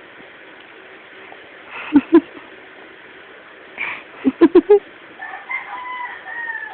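A baby's small sneezes: a pair of short sharp bursts about two seconds in, then a quick cluster of four more a couple of seconds later. Near the end comes a high, drawn-out gliding voice.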